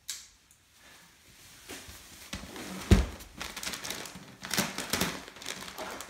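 Plastic wrapping of a compressed pack of Earthwool ceiling insulation batts being cut and torn open, crinkling and rustling from about two seconds in. A single heavy thump about three seconds in is the loudest sound.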